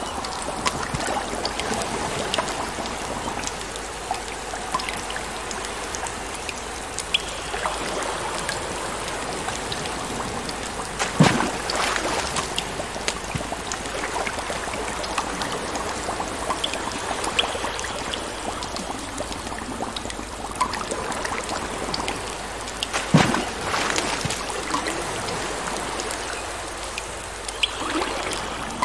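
Steady trickling, running water, with two sharper knocks, one about eleven seconds in and another about twelve seconds later.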